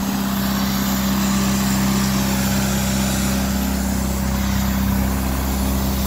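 Engine-driven trailer-mounted water pump running steadily, a constant low drone that holds the same pitch throughout, pumping floodwater out through a large hose.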